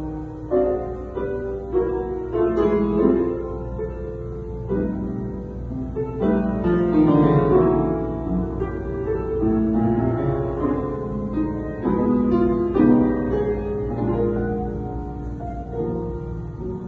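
Instrumental music: a melody of short, quickly changing notes over a steady low bass.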